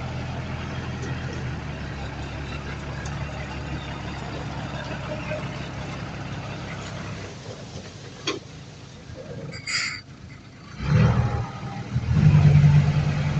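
Heavy diesel engine of earthmoving machinery running steadily. It drops away about seven seconds in, a sharp click follows, and near the end the engine comes back loud twice as it revs.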